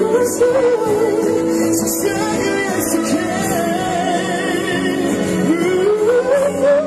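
A man singing a pop ballad live into a handheld microphone, his melody line wavering on long held notes, over amplified backing music with a steady beat through a concert sound system.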